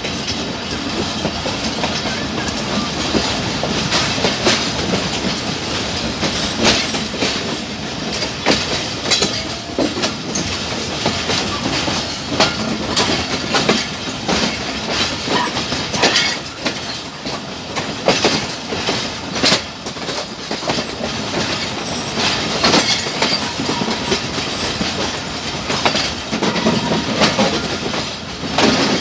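Passenger train coaches rolling on the track: a steady rumble broken by irregular clicks and clacks of the wheels passing over rail joints.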